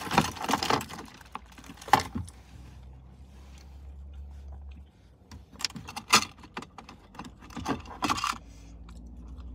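Close-up eating noises: fast-food packaging rustling and clicking in scattered bursts, together with chewing. A low steady hum sits underneath in the quieter stretches.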